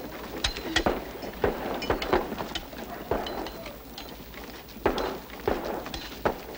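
Scattered gunfire: a run of irregular sharp cracks, some close together, with short noisy rushes about two seconds and five seconds in.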